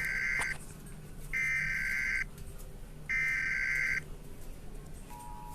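Emergency Alert System SAME header: three digital data bursts of about a second each with short gaps, the standard three-times-repeated header. About five seconds in, the steady two-tone EAS attention signal starts.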